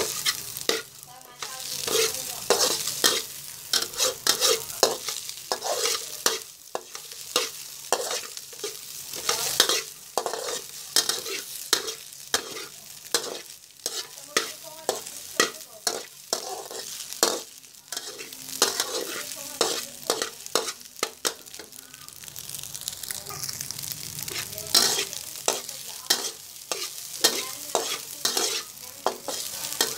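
Metal spatula scraping and knocking against a metal wok in quick, uneven strokes as fried rice is stir-fried, with a frying sizzle underneath. The stirring eases off briefly about two-thirds of the way through, then picks up again.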